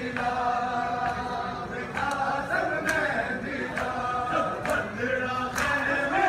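A group of men's voices chanting a nauha, a Shia mourning lament, together in long held lines, with sharp slaps about once a second.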